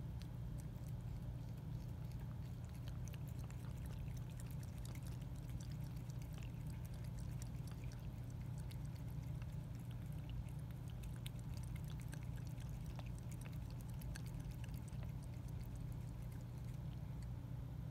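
Grey tabby cat lapping water from a glass bowl: a quick, steady run of small wet ticks and splashes. A steady low hum sits underneath.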